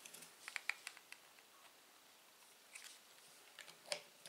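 Faint clicks and light taps of the Anet A8's black acrylic Z-motor mount pieces being handled and slotted together by hand: a cluster of small clicks in the first second, a few more later, and a sharper tap just before the end.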